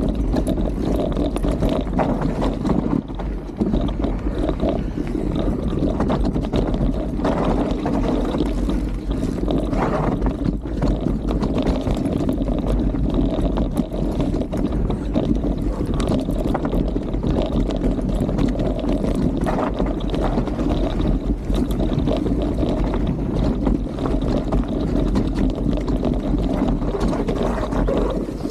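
Mountain bike rolling down a dirt forest trail: steady wind buffeting the camera microphone over tyre rumble, with frequent small knocks and rattles from the bike over roots and bumps.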